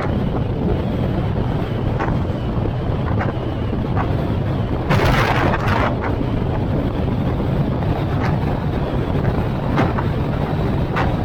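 Wind buffeting the microphone over the steady road rumble of a moving vehicle, with a louder rush about five seconds in and a few short hissing gusts.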